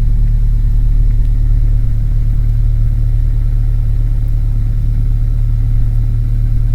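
Light training aircraft's piston engine running steadily at low power, a constant low drone heard inside the cockpit.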